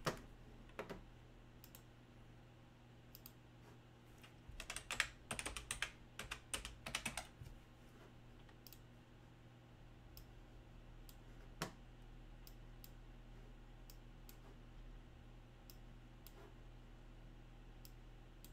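Typing on a computer keyboard: a quick run of keystrokes about halfway through, then scattered single clicks, over a faint steady hum.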